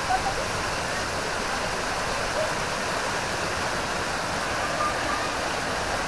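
Steady rushing of a waterfall spilling over rocks.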